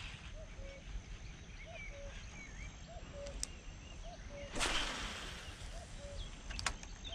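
A sharp swish of a spinning rod and line being cast, about four and a half seconds in, with short sharp clicks before and after it. Behind it a bird repeats a low two-note call about once a second, with higher chirps.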